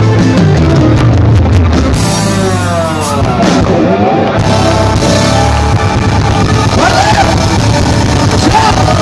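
Live rock band playing loudly through a PA, with electric guitars, bass guitar and drum kit. About two to four seconds in, a lead line slides down in pitch and back up.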